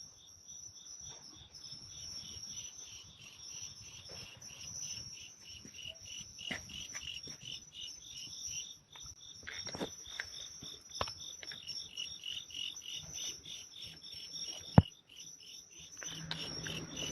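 Crickets chirping at night: a steady high trill with a fast, regular pulsing chirp just below it. Scattered soft clicks and one sharp click about fifteen seconds in, and a rise in rustling noise near the end.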